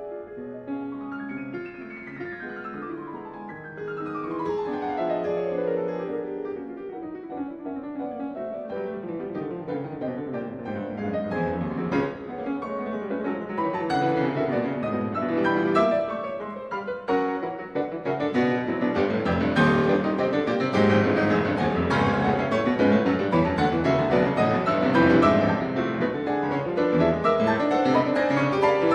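Classical piano music playing, with fast descending runs in the first few seconds and growing louder in the second half.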